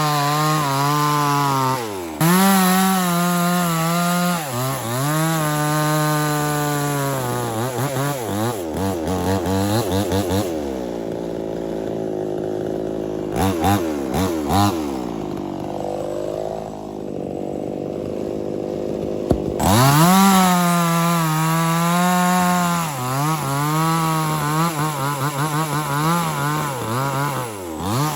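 Mini two-stroke chainsaw running at high revs and cutting wood, its engine pitch sagging and recovering again and again as the chain bites. For several seconds in the middle the throttle eases back to a lower, slower-varying running speed, and about twenty seconds in it revs up sharply to cut again.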